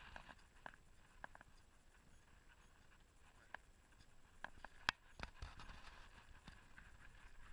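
Near silence with faint, irregular clicks and taps.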